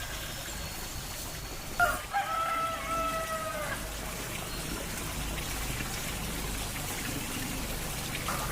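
Rooster crowing: one long held crow about two seconds in, with another starting near the end.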